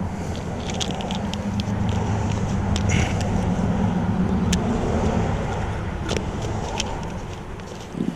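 A motor vehicle's engine running close by as a steady low hum that swells in the middle and fades away near the end, with scattered small clicks and taps over it.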